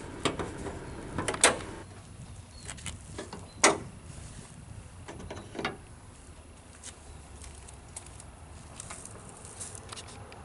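Tools and parts being handled at the car: a few sharp clicks and knocks in the first six seconds, then only faint ticks.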